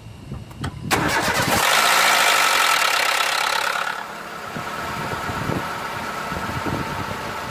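Car engine cold-starting: brief cranking, then the engine catches about a second in with a loud, harsh noise. About three seconds later the noise drops away and the engine settles into a steadier idle. The harsh noise is the big, strange cold-start noise the engine is brought in for.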